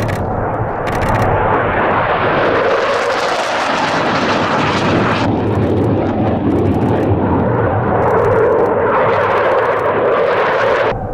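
Low-flying F-15 fighter jets passing, their twin jet engines making a loud rushing noise that swells twice, with an abrupt change about five seconds in.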